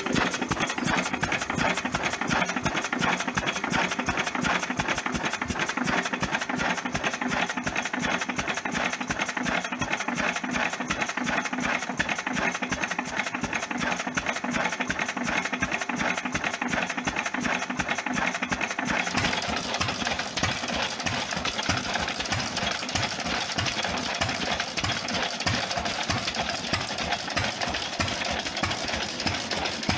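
Vintage single-cylinder stationary engine running steadily with an even, rapid beat. About two-thirds of the way through it gives way to a second old horizontal stationary engine running.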